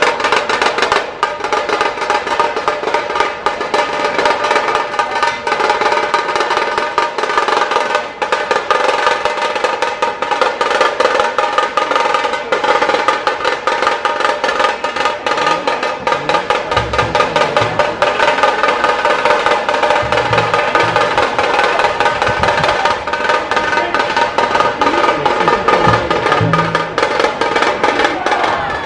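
A dhol tasha ensemble drums fast and without a break, with a few deeper beats standing out in the second half. The drumming stops abruptly just before the end.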